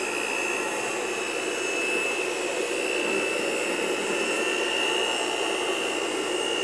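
Electric hand mixer running steadily with its beaters down in a bucket of liquid soap mixture, beating it to dissolve lumps of hardened soap. The motor gives a steady high whine over a churning hum.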